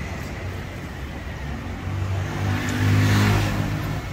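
A motor vehicle's engine passing close by on the street, swelling from about halfway through, loudest near the end, then dropping away, over a steady low traffic rumble.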